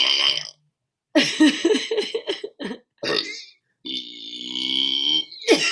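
A woman burping several times in a row: a pulsing, rattly burp about a second in, a short one near three seconds, and a long droning burp near the end.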